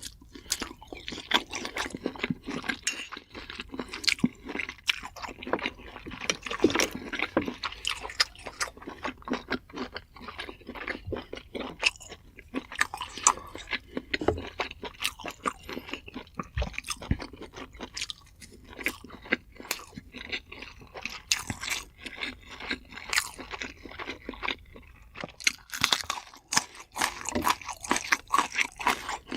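A person chewing and crunching food close to the microphone, in a dense, irregular run of crisp crunches and wet smacks, with brief pauses.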